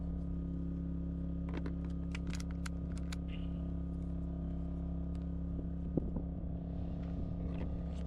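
A quick run of sharp plastic clicks about a second and a half in, lasting just over a second, as retaining clips are popped loose on a car's under-hood cover. A single knock comes near six seconds, over a steady low mechanical hum.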